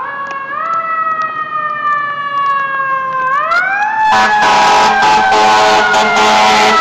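Fire engine's siren winding up, slowly sliding down in pitch, then winding up again. About four seconds in, a much louder, steady blaring sound joins, and the siren keeps falling beneath it.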